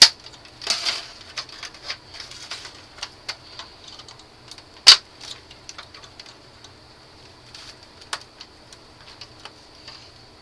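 Small plastic clicks, ticks and scrapes of a jeweler's screwdriver prying at the Xbox 360 case's plastic clips, with two sharp snaps, one right at the start and one about five seconds in.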